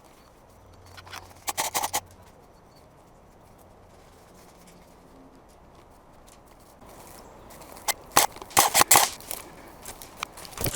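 Airsoft gunfire: a quick string of sharp cracks about a second and a half in, and a louder string of cracks around eight to nine seconds in.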